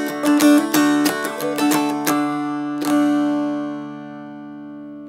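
Mountain dulcimer strummed with a flat pick: quick strokes in a steady rhythm over ringing drone strings. A final strum about three seconds in is left to ring out and slowly fade.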